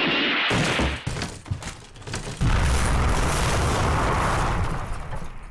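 Cartoon crash sound effects: scattered clattering knocks of breaking wooden barrels, then a long, loud rumbling boom as a pitfall trap caves in, fading away near the end.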